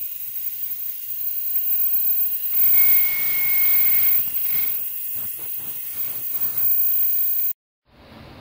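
Ultrasonic cleaner running with decapped fuel injectors submerged in its tank: a loud, steady high hiss, with a steady high whine for about a second and a half in the middle. It cuts off abruptly near the end.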